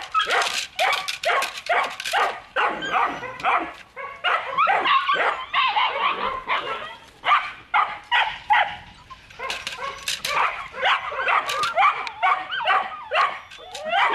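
A puppy yapping and barking over and over during tug-of-war play with a cloth. Bursts of short sharp clicks come at the start and again about ten seconds in.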